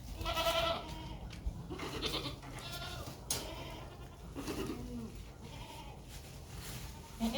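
Boer goats bleating: several separate calls, a higher-pitched one at the start and lower ones around two and about four and a half seconds in.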